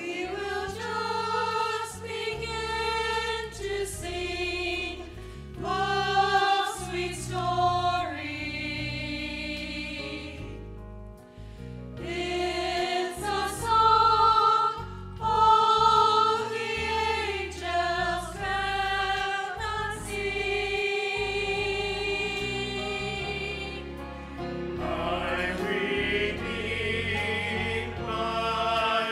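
Choir singing a hymn in held, phrased lines, with instrumental accompaniment sustaining low notes beneath the voices.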